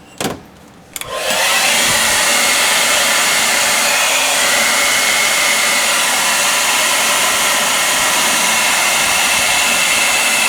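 A click, then a handheld hair dryer switching on about a second in and blowing steadily, run on hot to melt ice off a freezer's evaporator coil.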